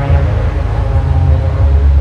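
Loud music with a heavy, deep bass under it, played over an airshow's public-address system.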